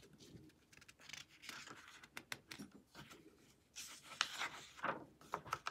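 A hand rubbing and turning a paper page of a picture book: faint rustling and sliding of paper, louder about four seconds in as the page is lifted and turned, with a few light clicks.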